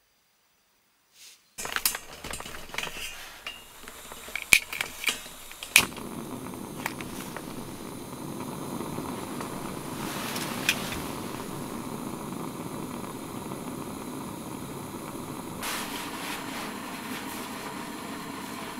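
A few sharp clicks and knocks, then a gas burner on a screw-on canister, fitted with a brass heater shroud, burning with a steady hiss.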